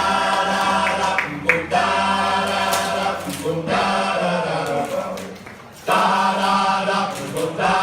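Several voices singing together in unison, easing off briefly about five seconds in and then picking up again.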